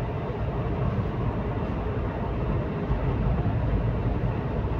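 Steady rumble of a vehicle driving along a paved road, engine and tyre noise with no sharp events.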